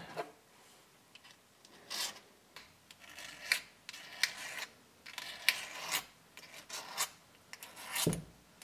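Razor blade scraping leftover RTV silicone gasket maker off the gasket flange of a Jeep differential housing, in a string of short, sharp, rasping strokes that start about two seconds in, roughly two a second.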